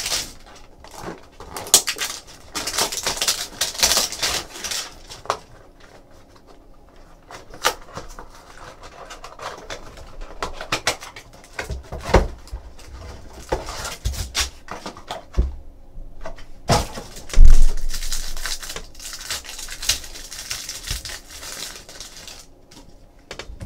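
Crinkling and rustling of a trading card hobby box and its foil packs being handled and opened, with irregular clicks and crackles. There are a few low thumps, the loudest about 17 seconds in.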